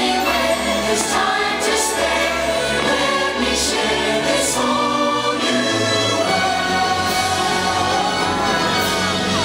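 The fireworks show's orchestral soundtrack with choir singing, played over loudspeakers, with a few sharp firework bangs over it.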